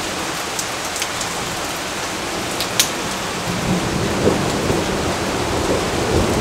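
Steady rain falling on leaves, with a few sharp close drips about a second in and near three seconds. A low rumble of thunder swells in the second half.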